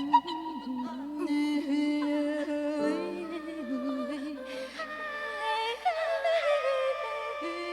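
Improvised vocal music: voices humming and singing held notes that slide in pitch, a low line underneath and higher lines above it.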